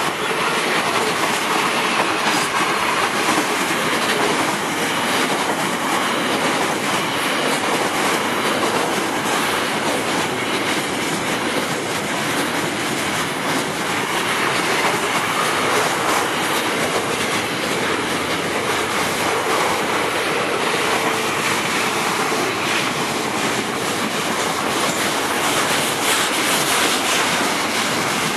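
Loud, steady rumble of a vehicle in motion, with no separate knocks or changes.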